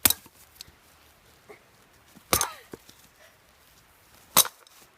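Axe blows striking a hard drive, three sharp hits about two seconds apart.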